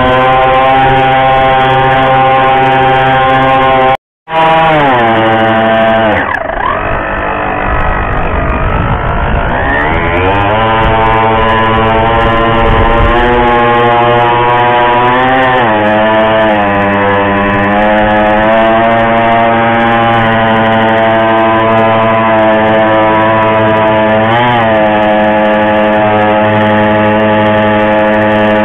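A cardboard RC model boat's small motor running steadily at one pitch. It cuts out briefly about four seconds in; soon after, the pitch sags and climbs back up over a few seconds, then holds steady with a couple of short wavers.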